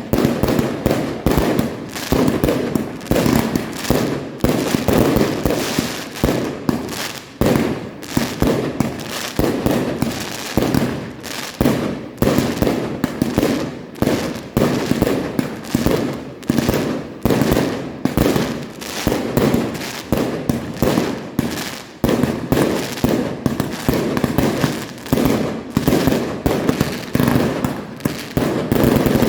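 Fireworks display firing continuously: a dense, unbroken run of launches and bangs, several a second, each dying away quickly.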